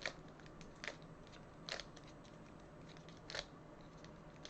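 GAN Skewb M speed puzzle being scrambled by hand: faint plastic clicks of its layers turning, four sharper ones spread out with lighter ticks between.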